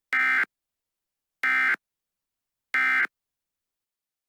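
Emergency Alert System end-of-message tones: three short, identical buzzy data bursts about a second and a quarter apart, signalling that the alert has ended.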